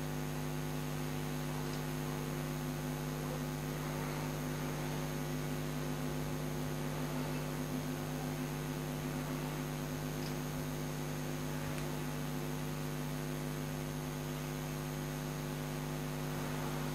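Steady electrical mains hum, a buzz with evenly spaced overtones, over faint ticks of a seam ripper picking the stitches of a sleeve seam on a kurta.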